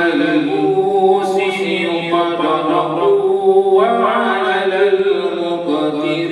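A man reciting the Quran aloud in a melodic chant, drawing out long, ornamented notes that rise and fall.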